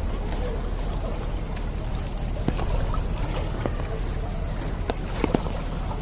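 Floodwater sloshing and splashing as someone moves through a flooded street, over a steady low rumble, with a few sharper splashes here and there.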